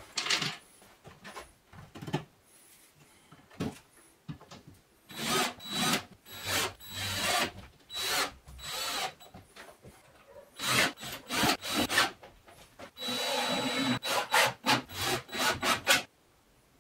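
Cordless drill running into a chipboard panel in repeated runs of one to three seconds, with a steady high whine from its motor. A few light wooden knocks come before the first run.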